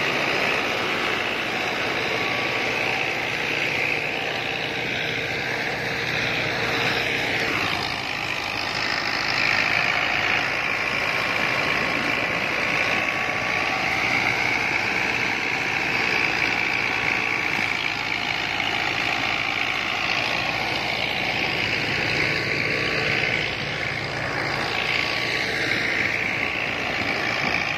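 New Holland 640 tractor's diesel engine running steadily under load, driving a thresher through its power take-off, with the thresher running alongside it.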